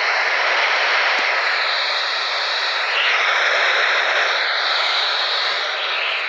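Weather radio receiver hissing with loud, steady static, with faint wavering high whistles through most of it.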